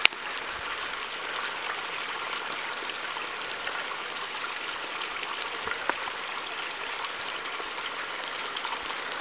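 Steady hiss of water, like rain or running water, with a few faint clicks.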